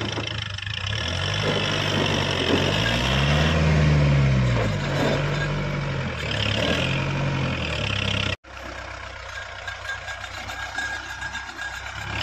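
Kubota 4x4 tractor's diesel engine running and revving up and down as it drives, its pitch climbing to a peak about four seconds in and swelling again a couple of seconds later. About eight seconds in the sound cuts off abruptly and gives way to a second tractor engine running more quietly and steadily.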